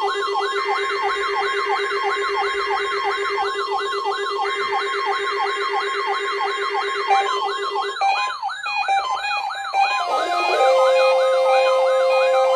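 Weather-radio warning alarm: a steady tone near 1 kHz, the 1050 Hz alarm tone, under a siren-like wail that rises and falls about four times a second. The pattern shifts about eight seconds in, and a steady lower tone joins near the end.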